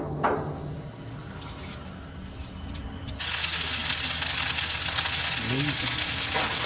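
Workshop machine motor humming steadily. About three seconds in, a loud, harsh, steady hiss of metalworking joins it.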